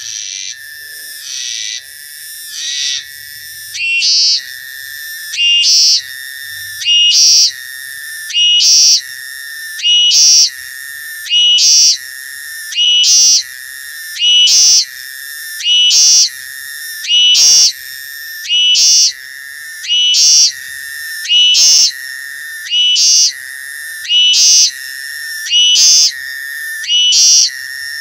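Cicada singing close by: a high, rasping buzz repeated about every one and a half seconds, each phrase swelling and ending in a louder burst that cuts off sharply. The phrases grow louder over the first few seconds, then hold steady.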